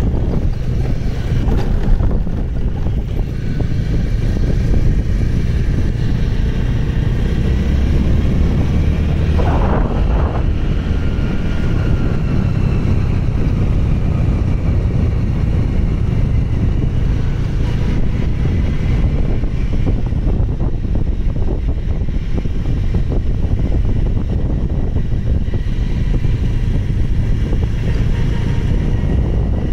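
Steady wind rush on the microphone over the running engine and tyre noise of a vehicle moving along a paved road.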